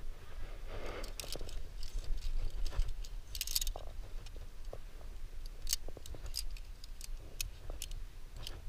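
Steel carabiners, quickdraws and anchor chain clinking and clicking against one another in scattered irregular ticks as gear is handled at a bolted climbing anchor, with a short scraping rattle about three and a half seconds in.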